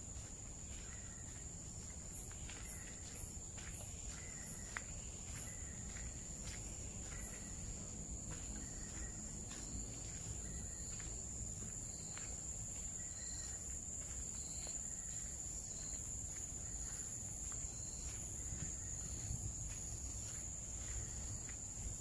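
Tropical forest insects, crickets or similar, holding one steady high-pitched drone, with a run of short, higher chirps in the first several seconds. Faint footsteps on a trail are heard beneath it.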